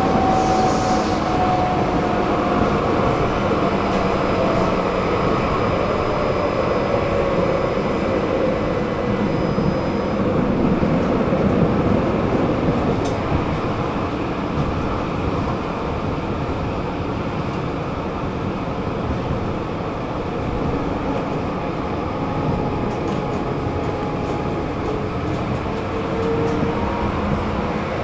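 Tram running on its rails: a steady rolling rumble, with a thin motor whine that falls in pitch over the first few seconds and rises again near the end as the tram slows and picks up speed.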